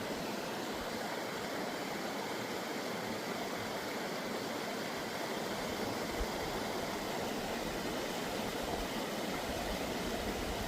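Steady rushing of a mountain creek, an even hiss of water with no rhythm, with a few soft low thumps in the second half.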